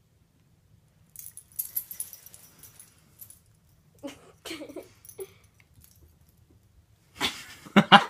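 Small dog's collar tags jingling faintly as it moves, then a few short, low vocal sounds from the dog about four seconds in. A louder burst of sound comes near the end.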